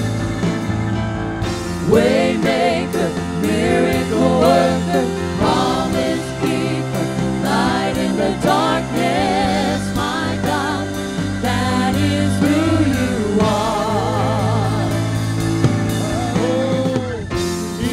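Worship music: a singer's wavering, held vocal line over sustained chords.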